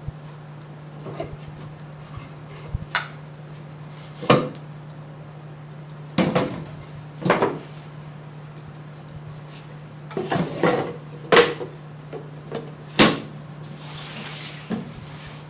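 Stage-magic props, a flat black frame and an open black box, knocking and clattering as they are handled and set down: about seven separate sharp knocks spread out, some in quick pairs, with a brief rustle near the end.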